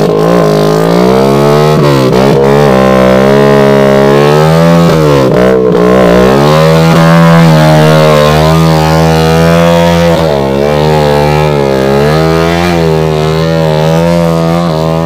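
Dirt bike engine revving hard under load, its pitch dipping and climbing again several times as the throttle is worked.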